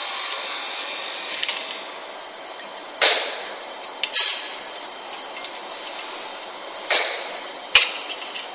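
Sharp knocks and clacks as the plastic bottle guide and metal parts of a rotary capping machine's turntable are handled and fitted. There are four of them spread over several seconds, the last a short hard click, over a steady hiss.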